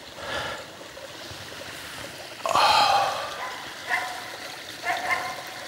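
Several short, pitched barks from a tree-barking bird dog, with a louder burst of noise about halfway through. The dog is barking to mark a capercaillie perched in a tree.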